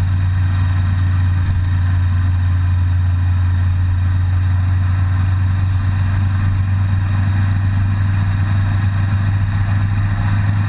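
Motorcycle engine running at a steady, even speed while riding, with a constant low drone.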